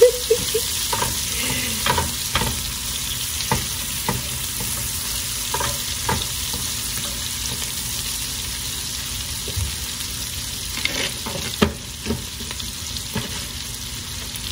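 Sliced onions sizzling in butter in a nonstick frying pan, stirred with a spatula that scrapes and knocks against the pan every second or two.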